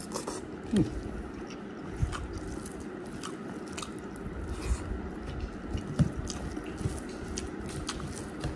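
Close-up chewing of a hand-fed mouthful of rice and beef curry, with many small clicks and smacks of the mouth.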